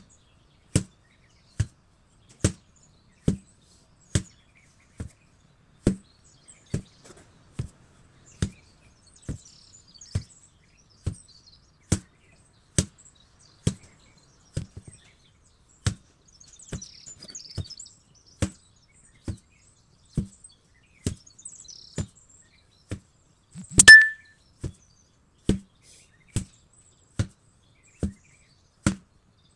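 An 8 kg sledgehammer striking in a steady rhythm, one dull thud a little faster than once a second. About four-fifths of the way through, one strike is much louder and has a short ringing clang.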